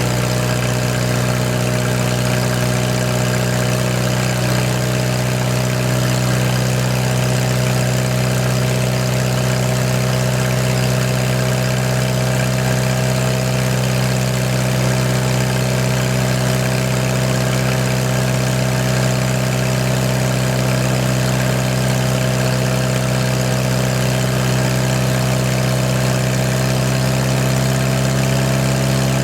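Old Hobart engine-driven welder's engine running steadily at an even speed, its pitch creeping up slightly, freshly brought back to life after sitting about 15 years.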